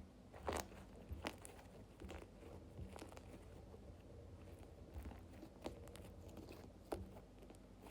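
Slime being worked by hand, giving faint, scattered crackles and clicking pops. The sharpest come about half a second in, at a second and a quarter, and near seven seconds.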